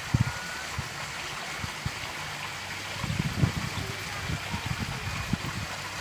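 Wind buffeting the microphone in uneven low rumbles over a steady open-air hiss.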